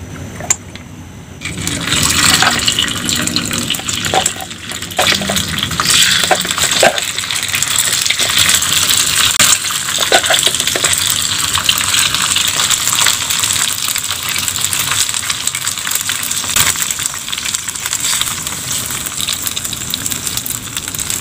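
Cilor pieces frying in hot oil in a multi-cup metal pan: a steady crackling sizzle that starts about a second and a half in and carries on, with a few sharper pops.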